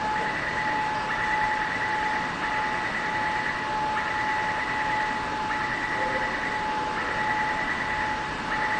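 A medium-capacity steel-wheel metro train standing at a station platform with its doors open, giving off a steady electrical whine. A higher tone cuts in and out about once a second.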